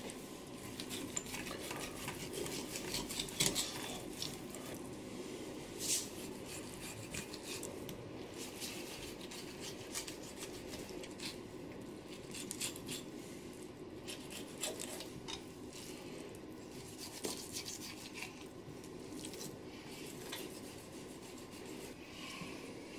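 Fillet knife cutting a bonito on a plastic cutting board, with faint scattered scrapes and clicks as the blade works along the bones, a few sharper ones a few seconds in. A steady low hum lies under it.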